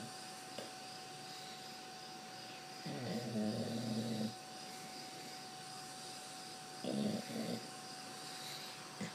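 Pit bull snoring in her sleep: one long snore about three seconds in, then a short double snore around seven seconds.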